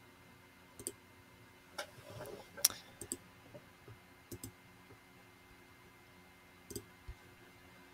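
Faint computer mouse clicks, about a dozen short clicks at an irregular pace, most in the first five seconds and another near the end.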